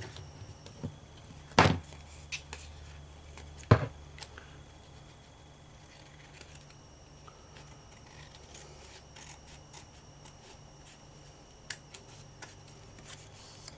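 Large scissors snipping through lace: two sharp snips about two seconds apart, a few lighter clicks around them, then only faint ticks.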